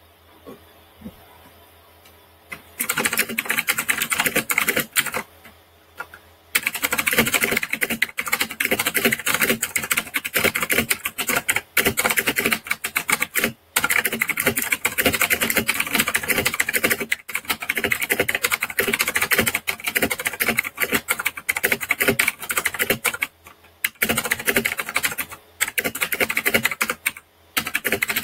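Fast typing on a computer keyboard, a rapid stream of key clicks at about 85 words per minute. It starts about three seconds in, pauses briefly around five seconds, then runs on with only a few short breaks.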